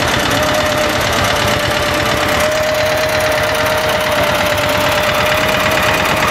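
Old tractor's engine chugging steadily in a fast, even knock while towing a loaded trailer at walking pace, with a steady tone held over it.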